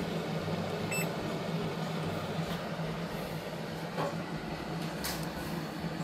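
Sub-Zero wine refrigerator running with a steady low hum after starting up on its new control board, and its control panel beeping once about a second in as the temperature setting is pressed down. A faint click and a brief rustle follow later on.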